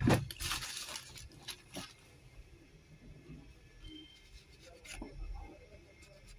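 A cloth rubbing and wiping over the embedded controller chip on a laptop motherboard, with a burst of handling noise at the very start and a few light knocks.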